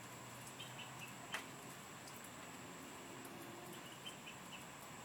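Faint, short, high chirps from an unidentified nocturnal tree-dwelling animal, which the recordist likens almost to a frog. The chirps come in small clusters about a second in and again near four seconds, with a single sharp click in between.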